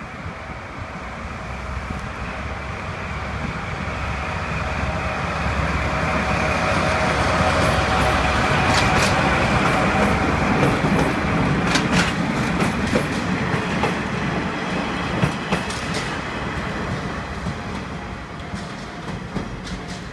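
Two double-headed DD51 diesel-hydraulic locomotives pass over a level crossing hauling a KiHa 120 railcar. The engine rumble builds to a peak midway and then fades, with wheels clacking over rail joints several times. A level-crossing bell keeps ringing underneath.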